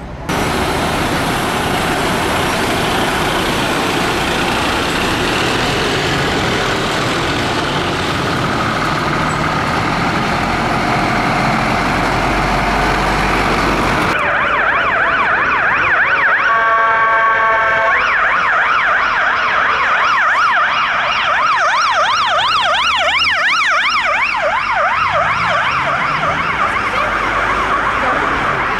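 Fire engine sirens in city traffic. First a siren over loud traffic noise, then a fast up-and-down yelp siren, with a horn blast of about two seconds early in that stretch.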